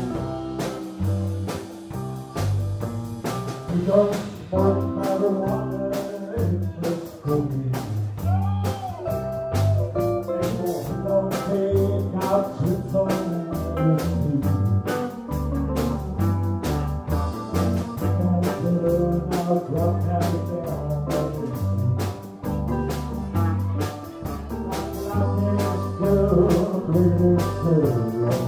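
Live band playing a country song: electric bass guitar and drum kit keeping a steady beat, with keyboard and guitar parts over the top.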